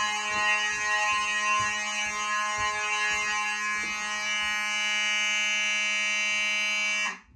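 Faraday 5505 fire alarm horn, coded to plain continuous, sounding a steady loud buzzing tone with irregular low knocks under it in the first few seconds. It cuts off suddenly about seven seconds in.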